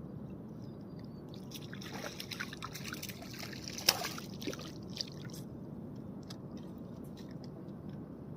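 Water splashing and trickling for a few seconds in the middle, with small clicks and one sharp click about four seconds in.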